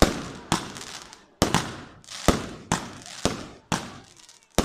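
Aerial fireworks bursting in quick succession: a sharp bang about every half second, each followed by a fading tail.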